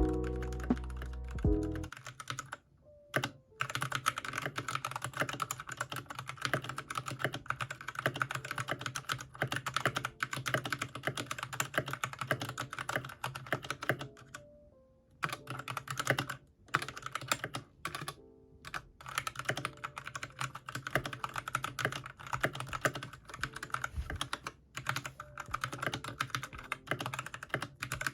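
Brief background music, then fast typing on a mechanical keyboard: a dense run of key clicks broken by a few short pauses.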